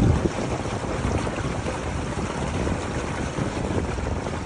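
Thick effluent slurry gushing from a corrugated hose into a poly tank, a steady heavy splashing pour as the tank fills.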